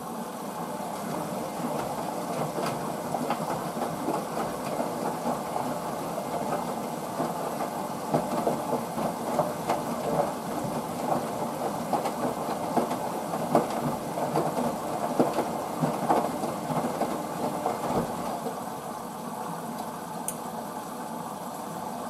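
Hoover VisionDynamic front-loading washing machine on its rinse, the drum turning the load through water with irregular knocks, louder for a stretch in the middle.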